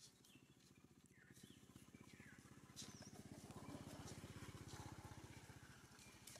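Faint short, high squeaks from macaques, each falling in pitch, several scattered through the first half. Under them runs a low, rapid throbbing hum that swells in the middle.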